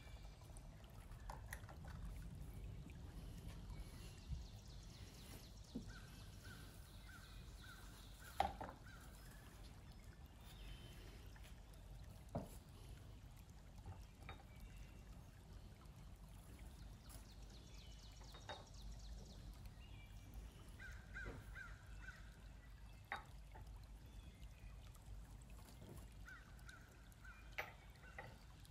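Faint, occasional knocks and clinks of cast metal ingots and pucks being set down and stacked on a digital kitchen scale, the loudest about eight seconds in.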